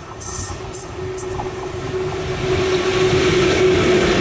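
Škoda class 183 electric locomotive running light, approaching and passing close by: a steady hum that grows louder, with wheel-on-rail rumble building to its loudest as the locomotive draws level near the end. A few short high-pitched bursts sound in the first second.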